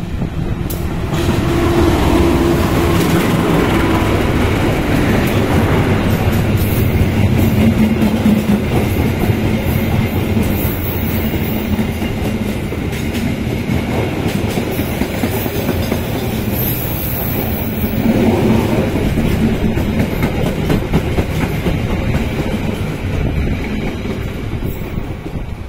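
Passenger train passing close by at speed. The diesel locomotive goes by first, then a long run of coaches, their wheels clattering steadily over the rail joints.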